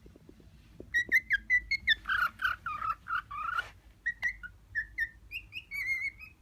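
Male cockatiel whistling his courtship song: a string of short whistled notes starting about a second in, a quick run of lower warbling notes in the middle, then more whistles.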